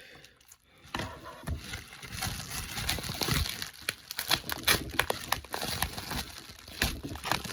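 Packing material crinkling and crackling as a mail-order package is unwrapped by hand, starting about a second in with irregular sharp crackles and rustles.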